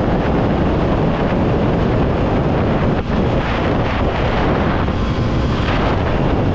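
Wind rushing over the microphone of a motorcycle riding at highway speed, about 98 km/h, with road and engine noise underneath; loud and steady throughout.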